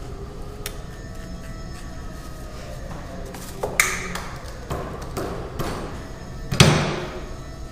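A few sharp knocks and clunks, two with a short metallic ring, the loudest about two-thirds of the way through, from handling a plaster positive mould on its pipe mandrel in a bench vise. A steady low room hum runs underneath.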